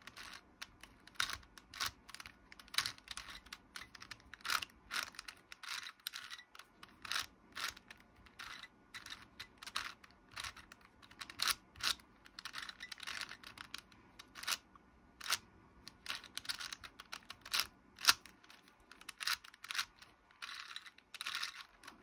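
A 4x4 Rubik's cube being turned by hand: a run of quick, irregular plastic clicks and clacks as its layers snap round, several a second with short pauses, while a parity algorithm is worked through.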